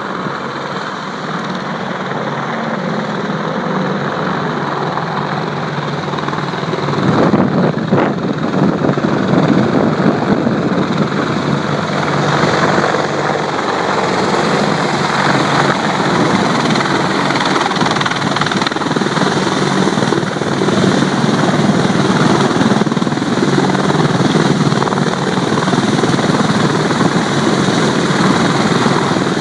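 Boeing AH-64D Apache Longbow helicopter running, a steady rotor and turbine sound with constant tones over heavy noise, growing louder about seven seconds in.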